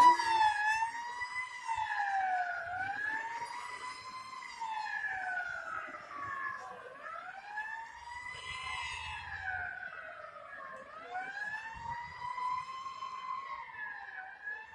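Emergency vehicle siren wailing, its pitch rising and falling slowly, about once every four seconds.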